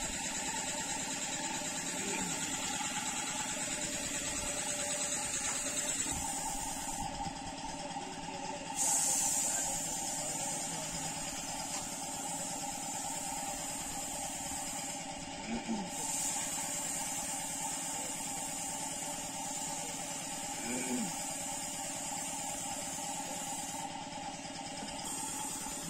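Gravity-feed air spray gun hissing in long bursts while spraying paint, cut off briefly three times as the trigger is released, over the steady hum of the motor supplying its air.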